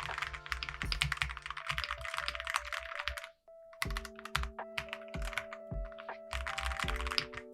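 Fast typing on a stock Yunzii AL71 aluminium mechanical keyboard with Gateron Milky Yellow switches and jello keycaps: a dense run of key clacks with a deep thock on the bottom-out. The typing stops briefly a little before halfway and then picks up again. Soft background music with held notes plays underneath.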